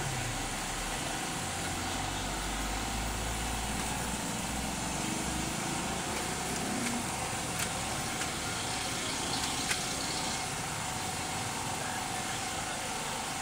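A steady machine drone with a constant mid-pitched whine and hiss, and a low rumble over the first few seconds; a couple of light clicks come a little past halfway.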